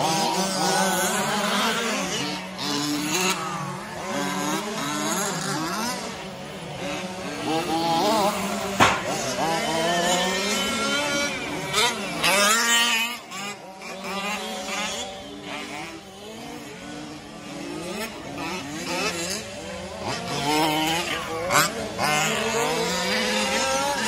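Several radio-controlled 4WD short-course trucks racing on a dirt track, their motors rising and falling in pitch as they accelerate and slow for corners. A few sharp knocks cut through.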